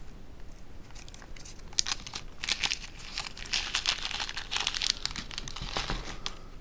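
Small clear plastic parts bag crinkling and rustling as hands handle it and pick out small screws, in a run of scratchy crackles from about one second in to near the end.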